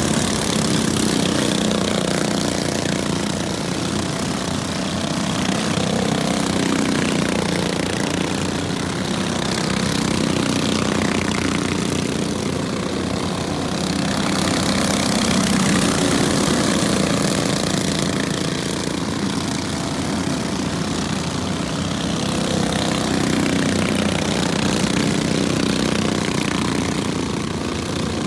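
Several junior sprint cars' small engines running as the pack laps a dirt oval, the drone swelling and easing as the cars come round.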